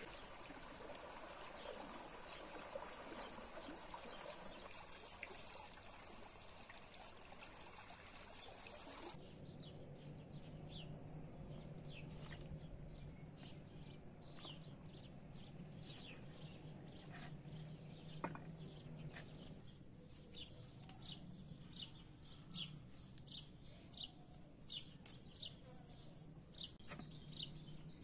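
Faint, even rushing hiss like a trickle of running water for about the first nine seconds. It then changes abruptly to small birds chirping in short, repeated high notes, growing busier toward the end, over a faint low steady hum.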